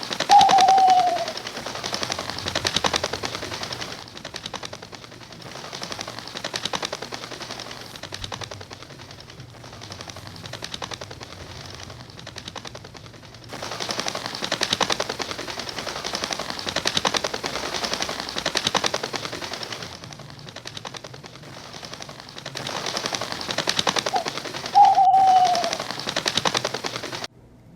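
Bat-colony sound effect: many bats chattering in rapid, dense clicks and squeaks, with a short falling call near the start and again near the end.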